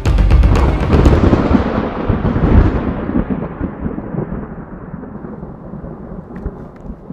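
A loud boom at the start that rolls into a long, deep rumble, fading over several seconds as its higher part dies away first.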